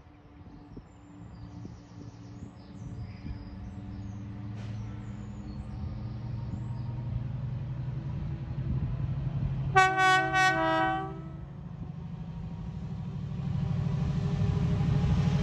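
Colas Rail Class 70 diesel locomotive, its GE PowerHaul V16 engine running under power and growing louder as the train approaches. About ten seconds in, its two-tone horn sounds once for about a second, high note then low.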